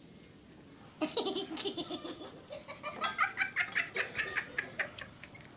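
A person laughing, starting about a second in and breaking into a fast run of short bursts.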